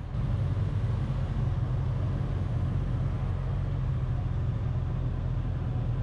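Honda CBR650R's 649 cc inline-four engine idling steadily.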